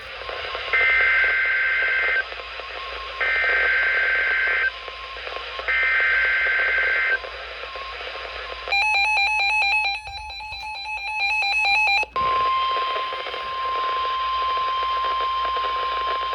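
NOAA Weather Radio Emergency Alert System (EAS) alert coming in. First come three warbling data bursts of the SAME header, each about a second and a half with short gaps. Then about three seconds of rapid electronic beeping, then the steady high warning alarm tone, which continues.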